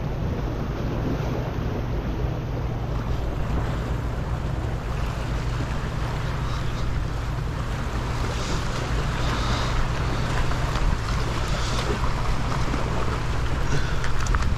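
Steady wind rumble on the microphone over waves washing against jetty rocks. In the second half a hooked small bluefish splashes at the surface near the rocks, adding brief splashy hiss.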